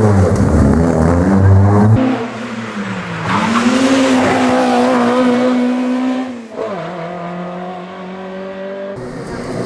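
Historic racing car engines being driven hard, in several short clips joined together. The engine note climbs under acceleration, then drops sharply at a gearshift about six and a half seconds in before holding steady again.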